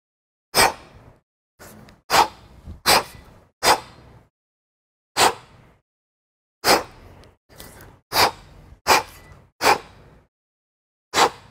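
A man's short, sharp breaths during kettlebell clean and press reps: about a dozen, unevenly spaced, each starting abruptly and trailing off.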